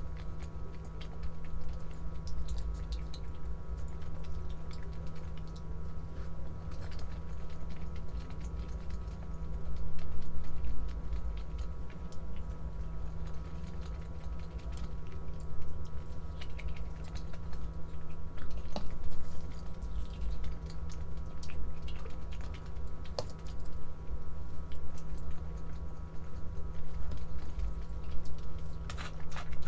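Scattered light clicks and taps over a steady machine hum.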